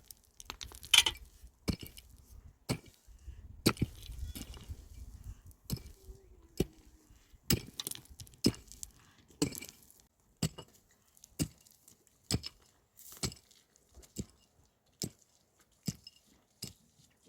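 Steady chopping or striking with a hand tool: sharp knocks about once a second, with some rustling under the first few.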